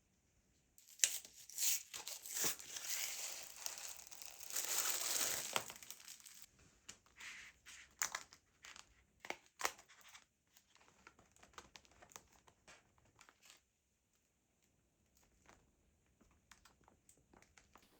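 Plastic packaging crinkling and rustling as a keyboard carrying bag is unwrapped and handled. The handling is heaviest over the first few seconds, then thins to scattered short rustles and light taps.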